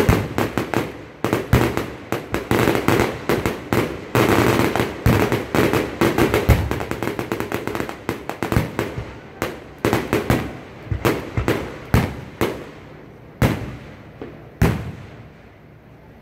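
Aerial fireworks bursting in a rapid barrage of bangs, thickest with crackle around the middle. After about nine seconds it thins to single booms a second or so apart.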